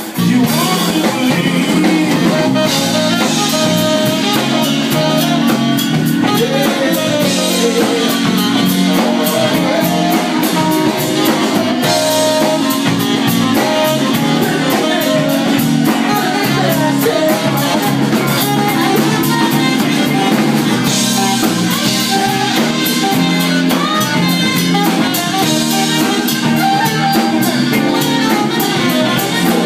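Live saxophone solo over a blues band, with drum kit and guitar backing and a steady cymbal beat.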